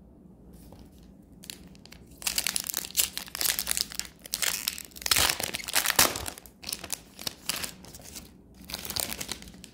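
Foil wrapper of an Upper Deck hockey card pack being torn open and crinkled by hand. It starts about two seconds in with a dense run of crackling and tearing, then thins to scattered crinkles near the end.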